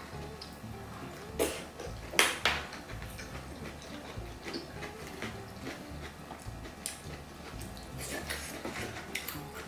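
Close-miked mukbang eating sounds: jjajangmyeon noodles in black bean sauce being chewed and slurped, with utensils clicking against the plate. The loudest clicks come about one and a half and two and a half seconds in.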